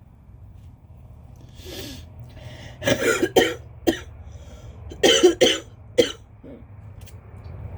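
A person's wet, phlegmy coughing in two short fits of several coughs each, the first about three seconds in and the second about five seconds in, after a breath in.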